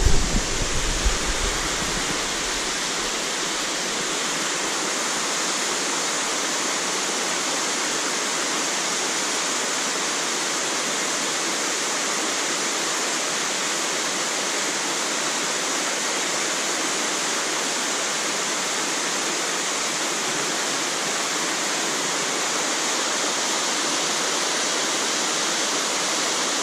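Steady rush of fast-flowing water, an even hiss that holds level throughout. A few low bumps come in the first second or two.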